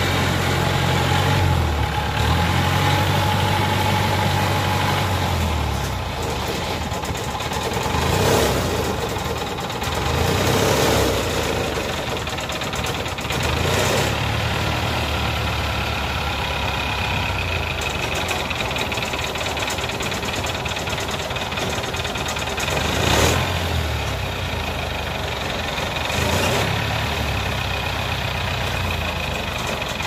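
Diesel engine of a tracked rice carrier running steadily as the machine manoeuvres on its crawler tracks. It swells louder briefly a few times.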